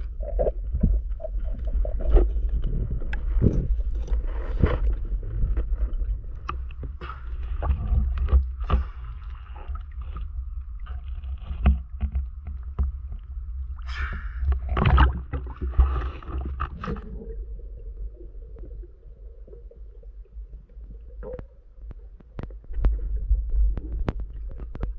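Water noise picked up by a diver's action camera while spearfishing: a steady low rumble with scattered clicks and knocks from handling the speargun and the speared fish, and a louder stretch of water noise about two-thirds of the way through.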